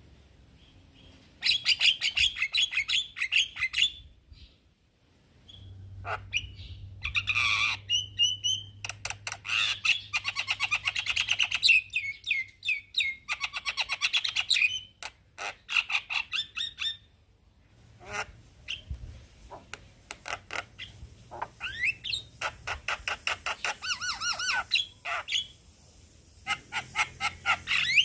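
Male Javan myna calling: bursts of fast, harsh chattering and squawking notes mixed with short rising whistles, broken by brief pauses between phrases.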